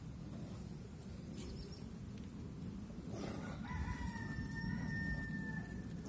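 A rooster crowing once: a single drawn-out call starting a little over halfway through, over a steady low rumble.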